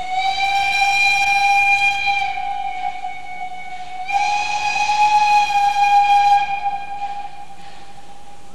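Narrow-gauge steam locomotive whistle giving one long, steady blast. It fades a little about two seconds in, swells louder again about four seconds in, and stops about seven seconds in.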